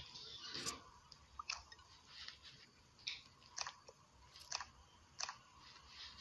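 Faint, irregular sharp clicks and crackles, about seven or eight of them, a little under a second apart.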